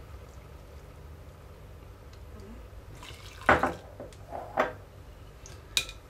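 Hot water pouring in a thin stream from a plastic measuring scoop into a glass jug of soft liquid soap paste, followed by a few knocks, the loudest about three and a half seconds in.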